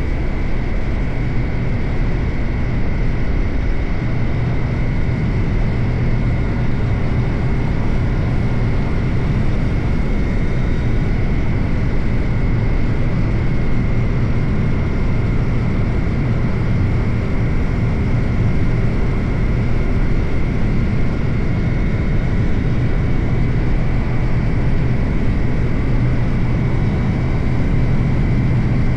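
Suzuki GSX-8R's parallel-twin engine running at a steady cruise, its note holding one pitch with no revving or gear changes, under a constant rush of wind and road noise.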